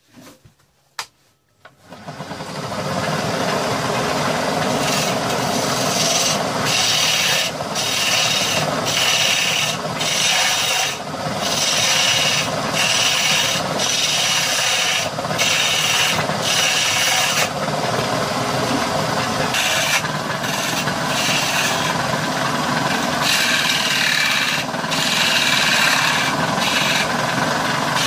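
Wood being turned on a homemade lathe driven by an old washing-machine motor: a hand chisel scraping a spinning wooden disc. The steady rasping starts about two seconds in and breaks off briefly many times as the tool eases off the wood.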